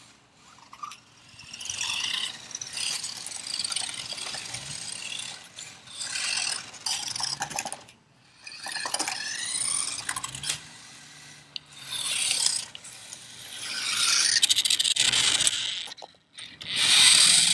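Remote-control toy car running in short bursts of one to two seconds. Its small electric motor whines in rising glides and its wheels rasp and rub on the floor, stopping and starting as it is driven.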